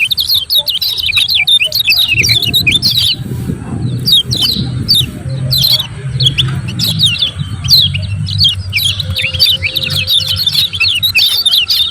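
Kecial kuning white-eye giving its rapid "ciak ciak" chirping calls: a dense, unbroken stream of short, high chirps, with a low rumble underneath.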